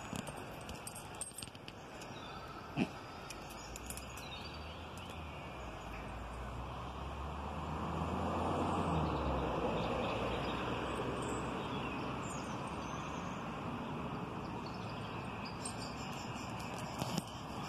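Steady outdoor background with faint bird chirps. A vehicle passes in the middle, rising to a low rumble and cutting off about halfway through. Near the end, a Westie puppy's claws tick on stone paving slabs.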